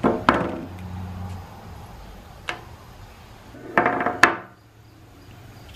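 Small metal transmission valve-body parts clinking and clattering as they are handled and set down on a bench: a few sharp clinks with brief ringing, two near the start, one in the middle and a cluster about four seconds in.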